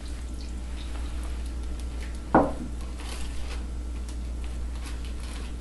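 Marinade poured from a glass measuring cup into a plastic zipper bag holding a salmon fillet, with small clicks and plastic crinkling as the bag is handled and sealed. A single sharp knock about two seconds in is the loudest sound. A steady low hum runs underneath.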